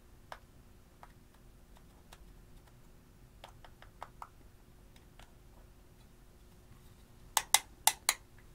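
Metal scissor tip crushing and scraping pressed blush powder in a plastic compact, giving light scattered clicks. Near the end, four sharp knocks in quick succession as the compact is tapped out over a glass bowl to empty the powder.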